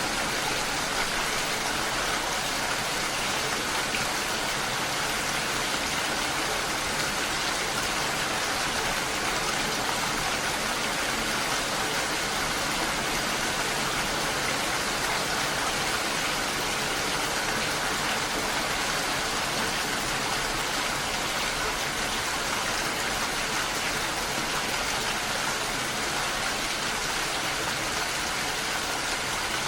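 Steady rain falling, an even, unbroken hiss of rainfall.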